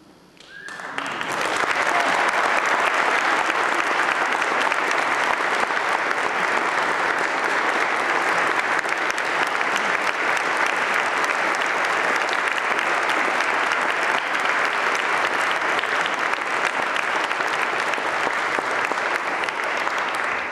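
Wedding congregation applauding. The clapping starts about a second in, swells within a second, then stays steady and loud.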